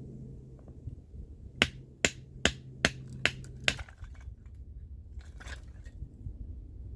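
Batoning firewood: a baton striking the back of a blade to split kindling, six sharp wooden knocks in quick succession, about two and a half a second, followed a couple of seconds later by a short scraping rasp.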